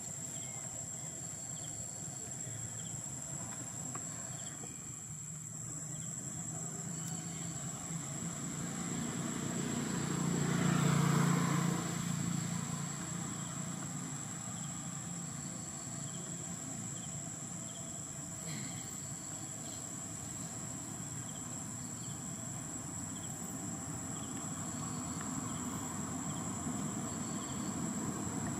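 Steady high-pitched drone of insects in the trees, with the low rumble of a passing engine swelling to its loudest about ten to twelve seconds in and then fading away.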